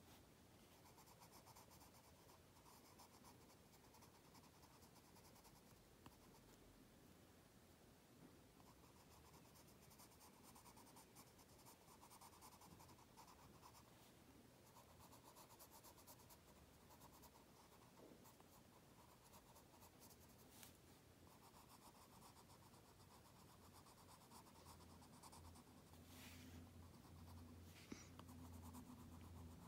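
Faint scratching of a colored pencil shading on an index card, in stop-start runs of quick back-and-forth strokes.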